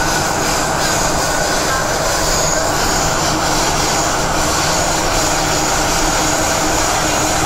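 MTR Tsuen Wan line M-train running at speed through a tunnel: a steady rumble of wheels on rail and traction drive, with a faint steady hum under it.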